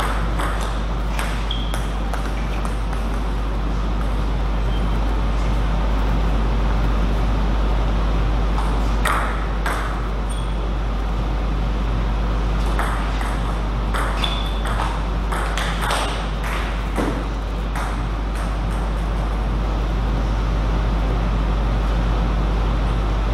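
Table tennis ball clicking off the rackets and table in quick exchanges: a rally near the start, a few hits about nine seconds in, and a longer rally in the middle. A steady low hum runs underneath.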